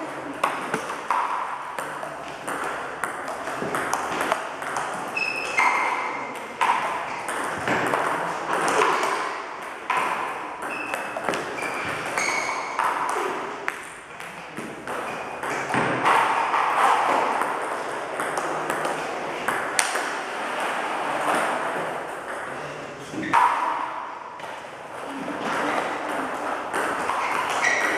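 Table tennis balls clicking in quick succession off bats and the table during multiball training, with the coach feeding ball after ball from a bowl. The clicks run on with only brief gaps.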